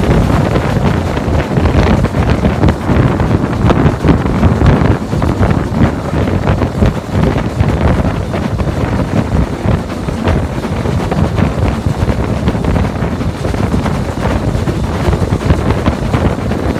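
BR Standard Class 4 2-6-4T steam tank locomotive 80097 working hard up a bank with the regulator wide open: a continuous stream of sharp exhaust beats and running noise at a steady level, with wind buffeting the microphone.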